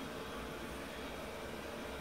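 Steady background hiss with a faint low hum, with no distinct sound standing out: room tone.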